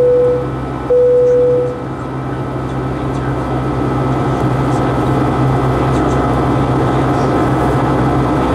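Steady noise of a Boeing 757's Pratt & Whitney PW2000 turbofans heard from inside the cabin during the climb. Near the start, two identical electronic tones sound one after the other, each just under a second long.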